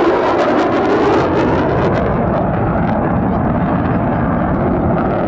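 Boeing EA-18G Growler's twin jet engines running loud and steady in a low, rumbling roar, with a rapid crackle over the first two seconds or so.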